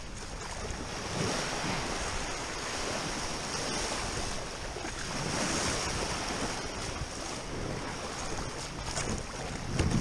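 Small surf washing and breaking around a kayak in the shallows, rising and easing in swells, with wind buffeting the microphone.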